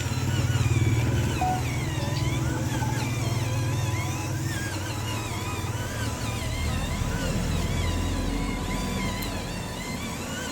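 A toy dump truck's motor running with a steady low drone, loudest about a second in and easing off toward the end, with high warbling chirps over it.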